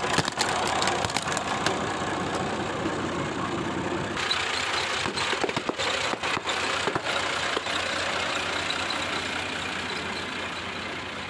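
Tractor engine running steadily while its big tyre crushes plastic cups and water balloons, with a run of sharp cracks and pops in the middle as they burst. The engine sound changes abruptly about four seconds in.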